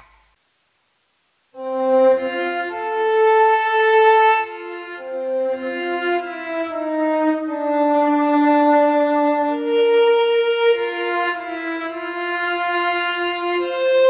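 Instrumental background music: after a moment of silence, a new piece starts about a second and a half in, a slow melody of long held notes.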